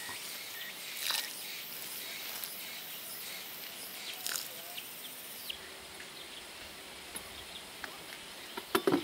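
Garden ambience of insects buzzing steadily, with scattered bird chirps. Just before the end, a quick cluster of sharp knocks as a small hand hoe strikes the soil.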